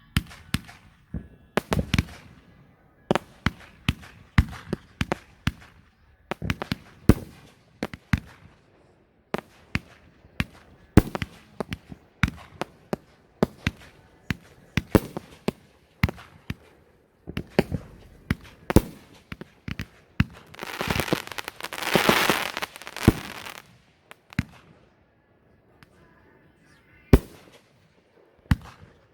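Fireworks going off: an irregular string of sharp bangs, several a second at times, for about twenty seconds. About twenty seconds in comes a dense burst of crackle and hiss lasting about three seconds, then a lull and one last bang near the end.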